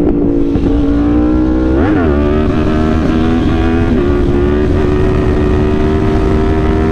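Yamaha R1's inline-four engine pulling hard under throttle for a wheelie: the revs climb and then drop sharply about two seconds in at a gear change, then hold a steady high note. Wind rushes on the microphone underneath.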